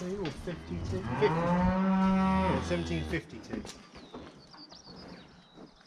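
Beef cattle mooing: one long, loud moo lasting about two seconds, starting about a second in. The pitch rises slightly and then falls.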